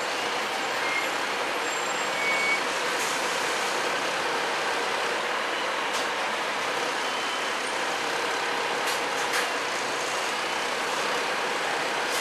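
A double-decker bus's diesel engine idling steadily while parked. A few short clicks and hisses sound over the hum.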